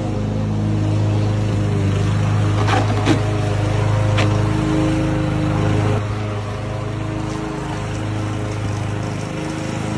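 Small yard-tool motors, such as a lawn mower or leaf blower, running steadily with a low, even drone. A few short clicks come about three and four seconds in, and the drone drops slightly about six seconds in.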